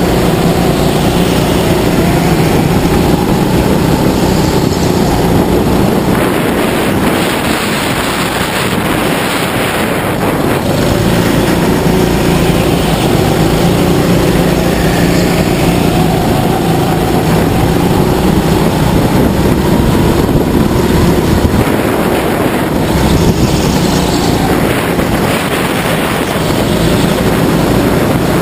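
Go-kart engine running continuously under the driver during a race lap, its pitch rising and falling slowly as the kart accelerates and slows, over a steady rush of noise.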